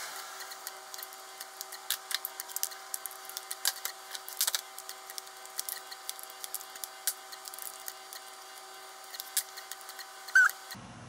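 Light clicks and taps of hard plastic and metal parts being handled as an in-tank fuel pump is worked into its plastic bracket, scattered irregularly over a faint steady hum. A short squeak near the end is the loudest sound.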